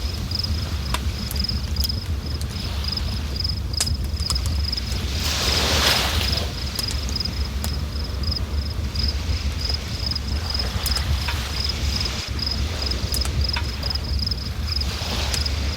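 River water running with a steady deep rumble, while a cricket-like insect chirps in a fast, even pulse of one high note. Swells of hiss rise about five to six seconds in and again near the end.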